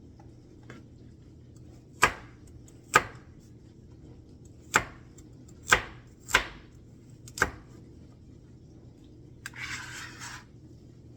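A knife chopping baby carrots on a cutting board: six sharp, separate chops roughly a second apart. Near the end, a brief scraping rustle.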